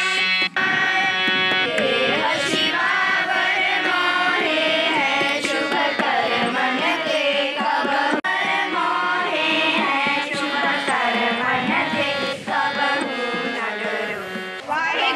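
Schoolchildren singing a devotional hymn together to tabla accompaniment, the sung melody wavering up and down over a steady drone.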